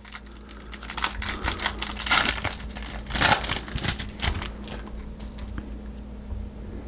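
Foil wrapper of a trading-card pack crinkling and being torn open by hand, irregular crackles that are densest in the first half.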